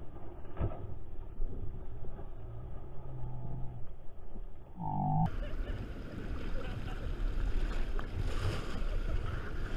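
Seawater splashing and sloshing as people thrash about in shallow waves. A short, high, voice-like call comes about five seconds in, after which the splashing sounds suddenly brighter and busier.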